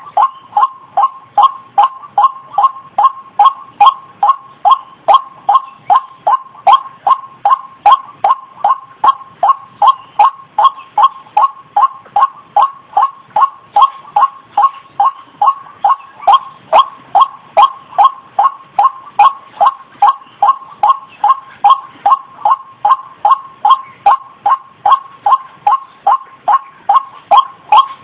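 White-breasted waterhen (ruak-ruak) lure call: a steady, unbroken run of hoarse "kruok" notes repeating about twice a second.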